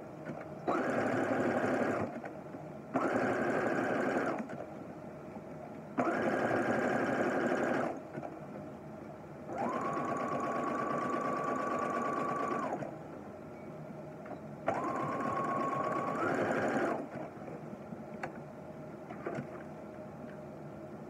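Electric domestic sewing machine stitching a zigzag over a wire nose piece on a fabric face mask, running in five short runs of one to three seconds each and stopping between them.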